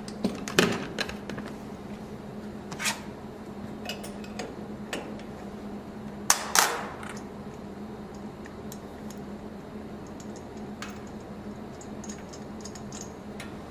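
Brass air-hose fittings clicking and clattering as the hoses are disconnected after a pressure calibration. There are scattered sharp clicks, loudest as two close metallic clicks about six and a half seconds in, over a steady low hum.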